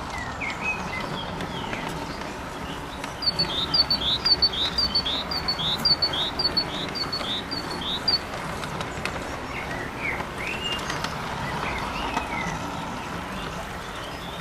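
A garden-railway model train running along its track with a steady rolling noise. Over it a bird sings a two-note phrase, a high note then a lower falling one, about ten times in a row in the middle. Scattered chirps come before and after.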